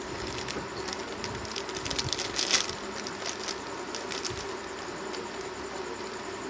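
Scattered small clicks and taps of small parts and tools being handled on a repair bench, with one louder brief rustle about two and a half seconds in, over a steady low hum.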